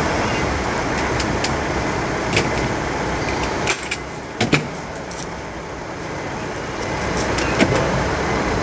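Steady background rumble with a few sharp clicks and taps, most of them in the middle, while upholstery fabric is handled and fastened onto a sofa base.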